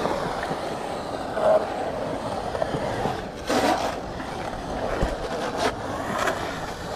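Skateboard wheels rolling on concrete as a skater carves a bowl: a steady rolling rumble, with a short louder burst about three and a half seconds in.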